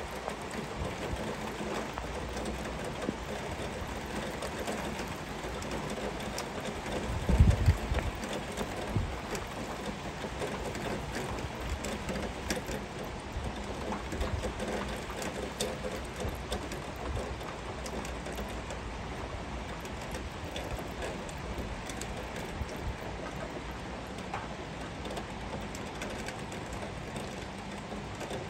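Heavy rain falling steadily, an even hiss. About seven seconds in, a brief low rumble stands out as the loudest moment.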